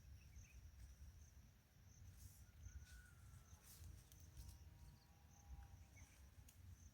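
Near silence: faint outdoor background with a low rumble, a steady high-pitched tone and a few soft rustles.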